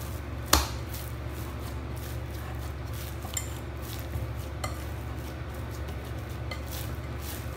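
Risen yeast dough being punched down by hand in a glass bowl: soft pressing strokes, with one sharp knock against the glass about half a second in and a few lighter taps later. A steady low hum runs underneath.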